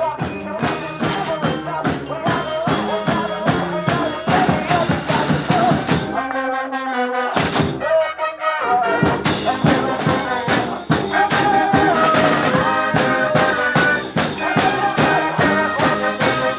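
A street brass band plays live: horns, trombones and trumpets over a steady drum beat. About six seconds in, the drums drop out for a couple of seconds while the horns hold a chord, then the full band comes back in.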